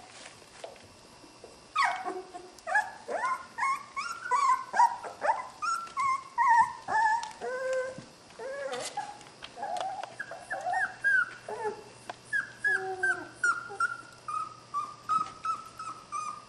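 Border Collie puppies yipping and whining as they play-wrestle, with many short high calls overlapping at different pitches. The calls start in earnest about two seconds in and turn into a steady run of repeated yips near the end.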